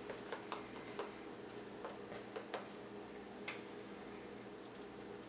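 Faint, irregular small clicks and ticks over a steady low hum, the sharpest about three and a half seconds in, with fewer after that.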